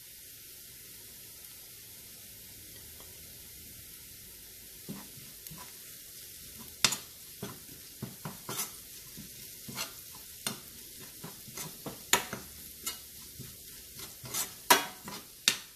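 Shallots, ginger, garlic and fennel seeds sizzling steadily in oil with freshly added turmeric powder, frying until the raw smell goes. From about five seconds in, a spoon stirs and scrapes against the pan in irregular clicks.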